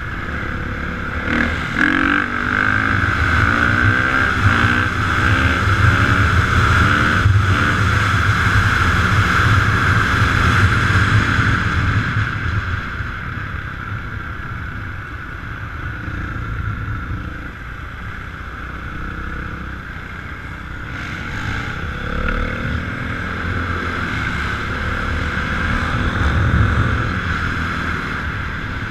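Dirt bike engines revving and running, their pitch rising and falling, over a steady rumble of wind on the microphone. The engine sound is louder in the first half.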